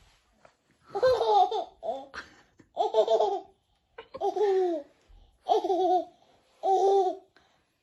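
A baby laughing and babbling in about six short, high voice bursts, roughly one a second, with short pauses between them.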